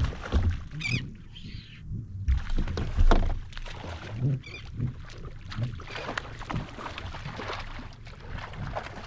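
Irregular knocks, bumps and clatter of gear on a fishing kayak, with low thumps, the loudest about three seconds in.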